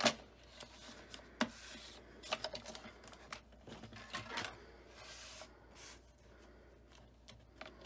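Paper being shifted and trimmed on a Fiskars sliding paper trimmer: quiet rustling of the sheet against the cutting base, with a few sharp clicks near the start.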